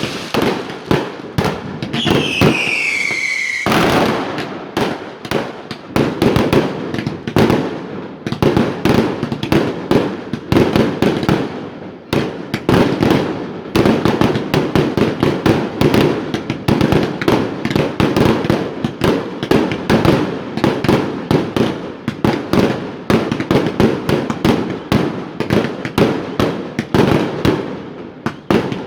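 Fireworks display: a dense, continuous barrage of rapid bangs and crackles. About two seconds in, a whistling shell sounds for under two seconds, its pitch falling, before it cuts off into more bangs.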